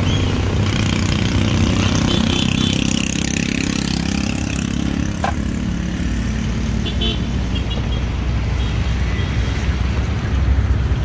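Street traffic: motor vehicles running by with a steady low rumble and an engine hum through the first half, and a few short high beeps about seven seconds in.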